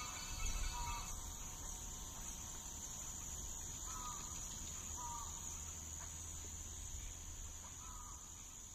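Faint steady high-pitched trilling of crickets, with four short two-note bird chirps spread through it over a low rumble.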